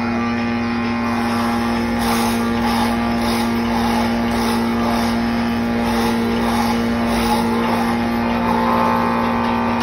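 A motor-driven machine running steadily with a strong constant hum. From about two seconds in, it is overlaid for several seconds by a rapid, regular hissing pulse.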